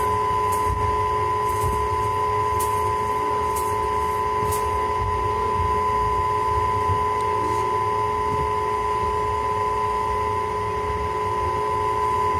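Passenger train running slowly, heard from inside the coach: a low rumble of the wheels on the track with a steady high whine, and light clicks about once a second in the first half.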